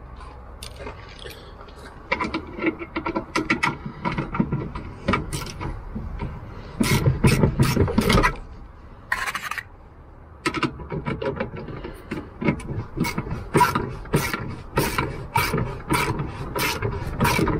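Socket ratchet clicking in quick runs as a bolt through the bed frame's metal bracket is turned. There is a short break about halfway through.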